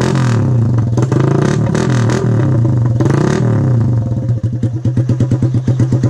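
Suzuki Raider 150 single-cylinder four-stroke engine, fitted with a big-elbow exhaust header, being revved in repeated blips and then settling to an idle with an even pulsing exhaust note about four seconds in. The retightened elbow is no longer leaking exhaust.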